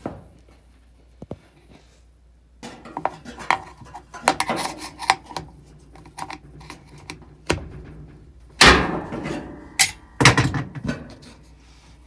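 Handling noise of hands and tools working under a washing machine: scattered clicks, scrapes and rubs, with two louder thuds in the second half.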